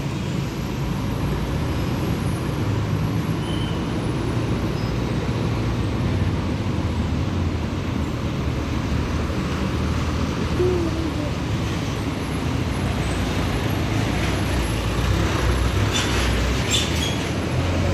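Bus engines running at a bus terminal, a steady low drone with traffic noise, and a few brief sharp noises near the end.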